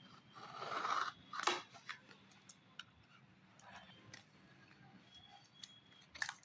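Packaging being handled: a rustling swell about half a second in, a sharp click around a second and a half, then scattered faint ticks and rustles.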